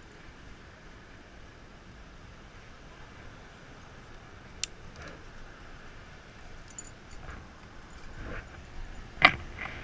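Plastic side-release buckle of a roll-top dry bag clicking, with fabric handling and a few lighter clicks, then a louder, sharper knock near the end, over a steady hiss of wind and surf.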